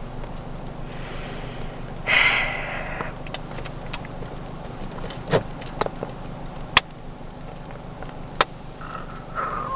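Steady low hum inside a parked car, with a loud breathy, rustling burst about two seconds in and a few sharp clicks and knocks after it.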